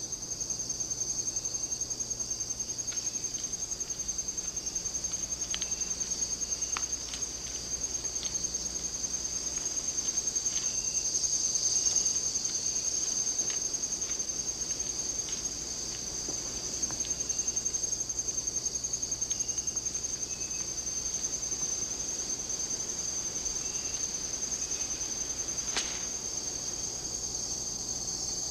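A steady, high-pitched chorus of insects in a continuous fast trill. It carries faint short chirps and a few soft clicks, with one sharper click near the end.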